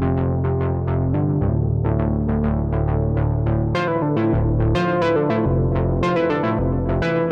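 Arturia Synthx V software synthesizer playing a fast arpeggio of short plucked notes, about six a second, over held bass notes. About four seconds in, the bass begins starting and stopping in short blocks and the upper notes turn brighter.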